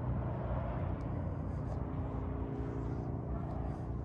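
Low wind rumble on the microphone with a steady distant engine hum that comes in about two seconds in.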